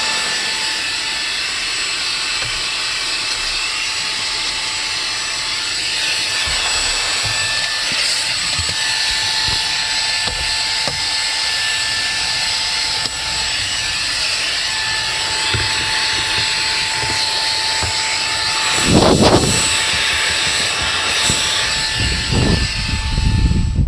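Xiaomi Mijia 120 W brushless-motor handheld vacuum cleaner running: a steady high whine over rushing air, with a few low knocks near the end, then switched off suddenly.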